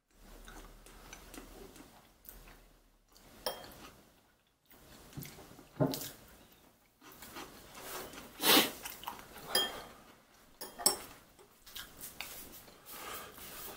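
Eating noodles from a ceramic bowl with metal chopsticks: irregular clicks and scrapes of the chopsticks against the bowl, mixed with wet chewing and mouth sounds, a second or two apart.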